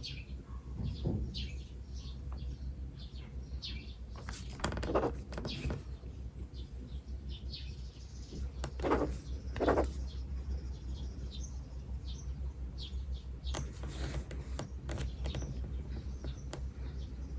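Small birds chirping and tweeting in short repeated calls, with the scratch of a pen writing on paper and a few louder scratches or rustles about a third and half way through, over a steady low hum.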